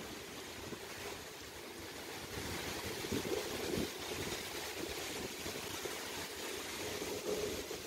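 Quiet, steady ambience of water lapping with light wind, with a few soft knocks about three seconds in.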